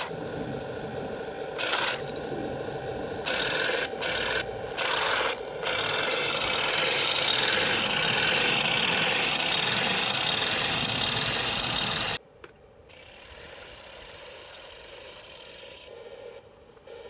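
Heng Long 1/16 RC Panzer III tank driving, its electric gearboxes and plastic track links clattering over the sprockets and road wheels. It moves in short spurts for the first few seconds, then runs steadily. About twelve seconds in the sound cuts off to a much quieter steady background.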